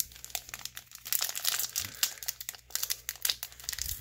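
Crimped foil wrapper of a Bowman Chrome baseball card pack crinkling as it is handled and torn open by hand. It is a rapid, crisp crackle that thickens about a second in.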